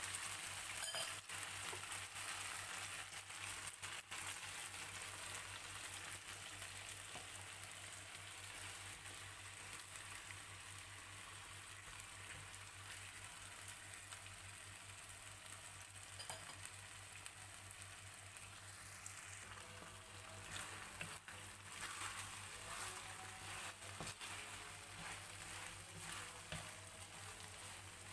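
Chicken and button mushrooms sizzling and simmering in teriyaki sauce in a nonstick frying pan, with a steady hiss. A wooden spatula stirs through them, its scraping strokes more frequent in the last third.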